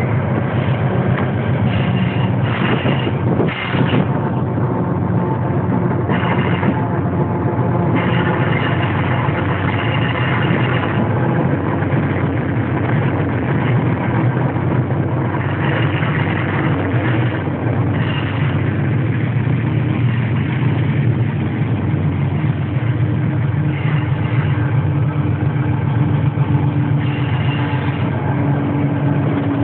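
Diesel locomotive running while the train rolls along the track, heard from inside the cab: a loud, steady low engine drone, with a higher steady tone joining in near the end.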